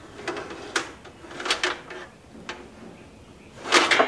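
Insulated electrical wires sliding and scraping against the metal conduit and panel box as they are pulled through by a string, in several short, irregular scrapes, the loudest near the end.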